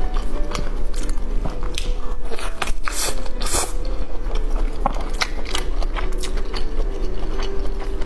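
Crunchy food being bitten and chewed in a mukbang: an irregular run of sharp crunches, with a couple of longer crunching bites about three seconds in.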